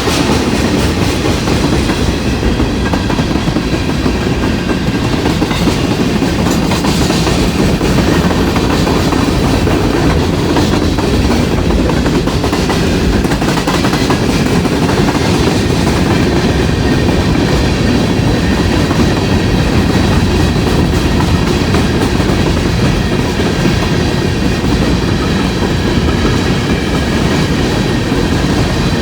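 Freight cars of a long CSX mixed manifest train rolling past close by: steel wheels running over the rails in a loud, steady rumble.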